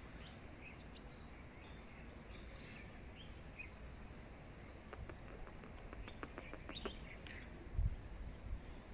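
Birds chirping faintly in short, scattered high calls. About five seconds in comes a quick run of light clicks lasting a couple of seconds, and a low thump near the end.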